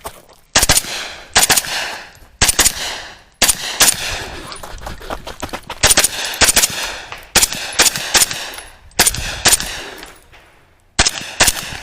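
Pistol-caliber carbine (10.5-inch short-barrelled rifle) firing rapid shots, mostly in quick pairs and short strings with brief pauses between them, as the shooter moves from target to target through a competition stage.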